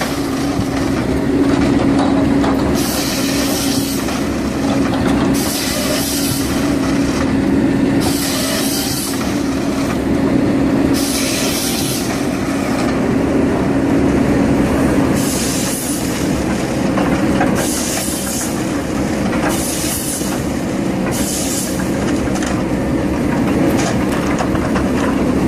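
A heavy machine's engine running steadily with a constant hum, broken by short bursts of hiss about every two seconds.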